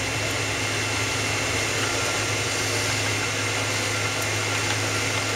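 Steady cabin noise inside a Boeing 777-200ER: engine and airflow rumble with a low hum and a few faint steady whining tones, heard from a passenger seat.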